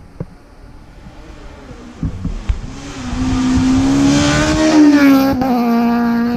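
Rally car speeding past on a gravel stage, its engine at high revs. The engine note climbs and grows louder as the car nears, with a hiss of thrown gravel, then drops in pitch about five seconds in as the car goes by.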